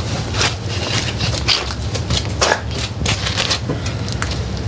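Quick irregular clicks and light knocks, with a steady low hum underneath.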